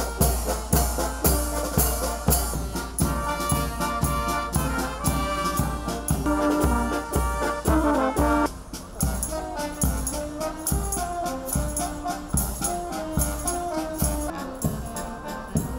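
Small brass band with trumpets and trombone playing a lively tune over a steady beat. The sound changes abruptly a little past halfway, the tune carrying on lower.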